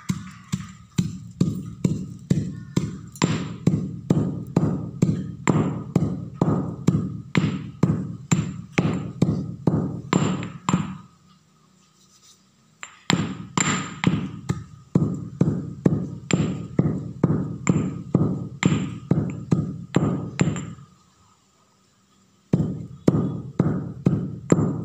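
Stone pestle pounding dried kernels in a stone mortar: steady dull thuds about three a second. The pounding stops twice for a second or two, about halfway through and again near the end.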